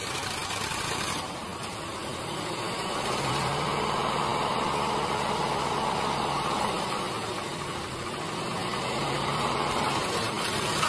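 Tractor diesel engines running steadily under load as one tractor strains on a chain to pull a stuck tractor and loaded trolley out of mud.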